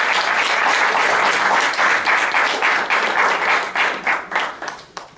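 Audience applauding: dense clapping that thins into a few scattered claps and dies away near the end.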